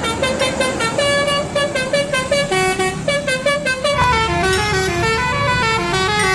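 Indonesian bus 'telolet' horn playing a quick tune of short notes that step up and down several times a second, over a low rumble.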